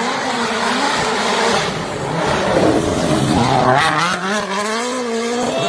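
Rally car passing at speed: a rush of noise, then the engine's pitch climbs from about three seconds in as it accelerates.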